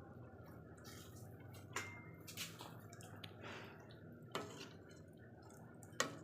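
Faint, scattered sharp clicks or drips, about four spread over several seconds, over a low steady hum.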